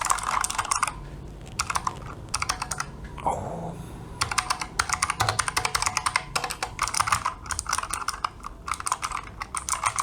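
Typing on a Razer Huntsman Mini 60% keyboard with Razer opto-mechanical switches: fast runs of key clacks, with brief pauses about a second in and between three and four seconds in.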